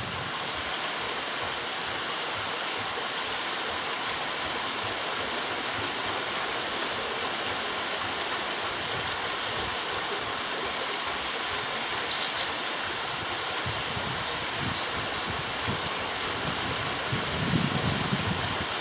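Steady rush and splash of water spilling from a wooden flume onto the buckets of a turning wooden overshot waterwheel.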